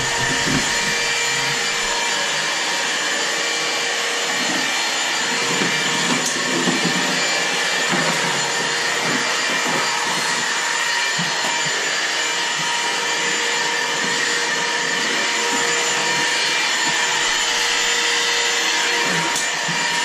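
Stick vacuum cleaner running steadily, its motor giving an even rushing noise with a constant high whine.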